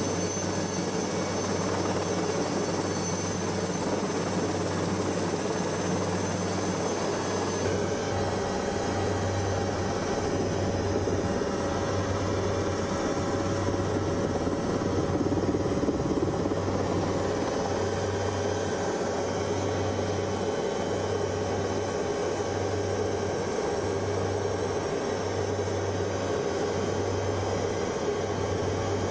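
Helicopter in flight, heard from on board: steady engine and rotor noise with a low hum. About eight seconds in the hum starts to throb slowly, about three beats every four seconds.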